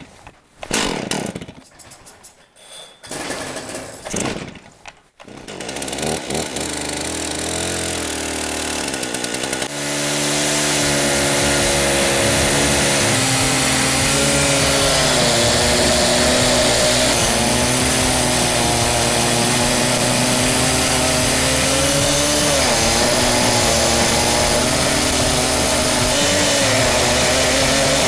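Twin-engine chainsaw mill, a 120cc Husqvarna and a 70–80cc Stihl chainsaw engine driving one chain on a single long bar, revved in short bursts at first. From about ten seconds in it runs steadily at high speed as the bar cuts along an oak log, its pitch dipping slightly now and then under load.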